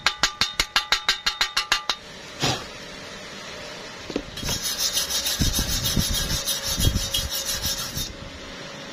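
Slag being chipped off a fresh stick weld on steel square tube: a flat metal bar taps rapidly and evenly, about six ringing strikes a second, for the first two seconds. After a pause, a steady scraping across the metal runs for several seconds as the weld is cleaned.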